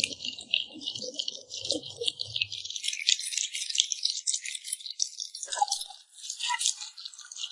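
A puppy eating with rapid, irregular wet mouth clicks and lip smacking, steady throughout.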